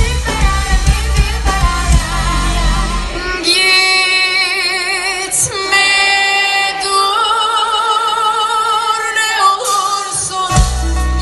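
Live pop concert music. A band with bass plays for the first few seconds, then drops away to a female singer holding long notes with vibrato over sparse backing. The full band comes back in near the end.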